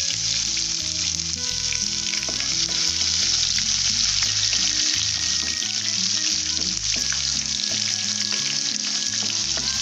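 Hot oil sizzling steadily in a kadai as groundnuts, dried red chillies and freshly added crushed garlic fry for a tempering, stirred with a spatula. Background music plays underneath.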